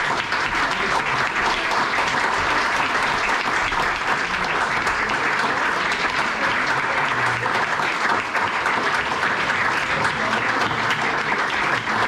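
Audience applauding steadily: a dense, even wash of many hands clapping.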